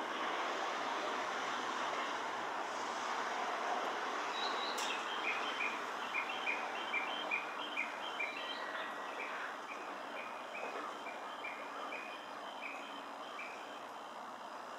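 A passing rail work train's running noise fading away as it recedes. From about five seconds in, a bird calls in a steady series of short chirps, about two a second, until near the end.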